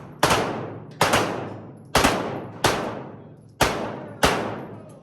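Pistol shots fired at an uneven pace, six in all, each followed by a long echoing decay.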